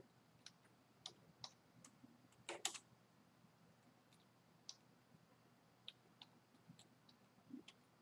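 Faint computer keyboard keystrokes: about a dozen scattered, irregular clicks, with a slightly louder pair of clicks about two and a half seconds in.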